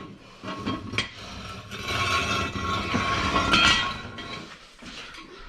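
Scraping and rattling of metal tools and parts, with a few sharp clicks.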